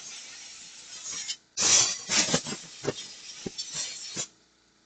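A brush scrubbing dirt off a blow dryer in irregular scratchy strokes, cutting off abruptly for a moment about a second and a half in and again near the end.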